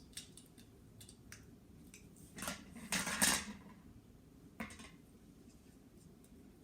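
Plastic LEGO pieces clicking and clattering as they are handled and pressed together: scattered small clicks, a louder rattling run of about a second near the middle, then one more click.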